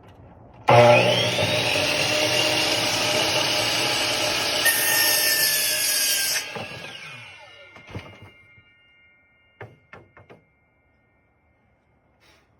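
Electric miter saw switched on, its motor whining up to speed and running for about six seconds, getting harsher partway through as the blade goes into wood. It is then released and spins down with a falling whine, followed by a few light knocks.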